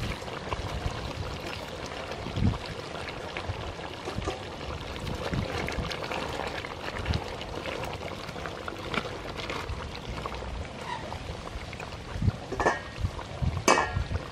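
Chicken curry bubbling in a large aluminium pot while a ladle stirs the onions, potatoes and chicken through it, with a few sharp knocks of the ladle against the pot near the end.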